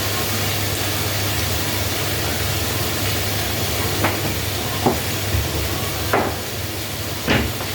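Shrimp, garlic and onion sizzling steadily in a hot pan as they are sautéed, with a few sharp knocks of a utensil against the pan in the second half.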